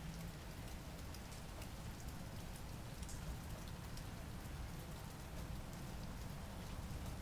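Steady rain falling, with many small sharp drop ticks over an even hiss and a low rumble underneath.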